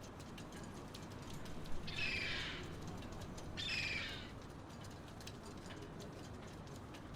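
Small-harbour ambience: a steady low wash of background noise with faint scattered ticks, over which a bird calls twice, about two and three and a half seconds in, each call lasting about half a second.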